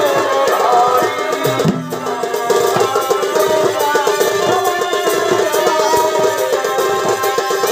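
Purulia chhau dance accompaniment: fast, steady drumming under a sustained melody line.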